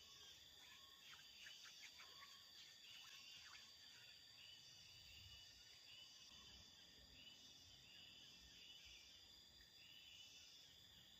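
Faint outdoor ambience: a steady high insect drone with a high chirp repeating evenly throughout, and a few short high calls about one to three seconds in.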